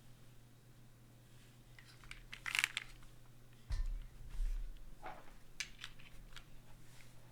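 Handling noises on a desk: a crinkling rustle about two and a half seconds in, a dull thump about a second later, then scattered light clicks, over a steady low electrical hum.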